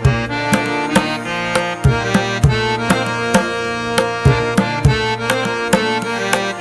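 Background music: a melody over a steady hand-drum beat of about two strikes a second.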